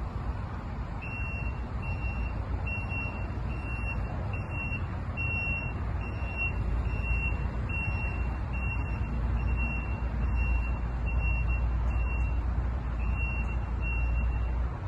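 A construction machine's warning alarm beeping, high short beeps a little more than one a second, with a brief pause near the end, over a diesel engine's low running that grows louder about halfway through.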